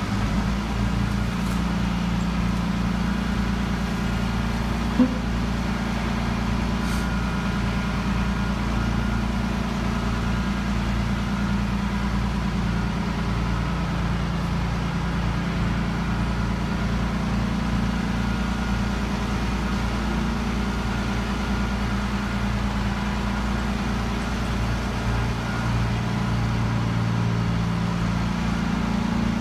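Overhead bridge crane's electric hoist running steadily while lowering a suspended CNC machine: a continuous mechanical hum with several held tones.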